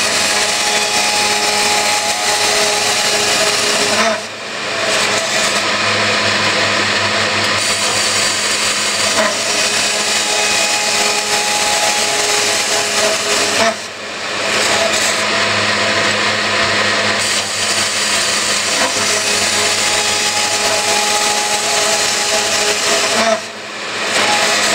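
Scotchman CPO 315 HFA-CNC automatic circular cold saw cutting metal tube with a 12.5-inch, 160-tooth blade at about 150 RPM, working through an automatic cycle of three cuts. A steady, loud cutting noise breaks off briefly between cuts, about every ten seconds.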